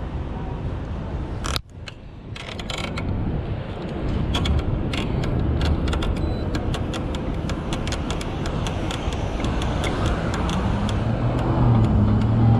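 Road and wind rumble from an e-bike being ridden, with irregular sharp mechanical clicks and ticks from the bike. The sound drops out for an instant about a second and a half in, and a low steady hum joins near the end.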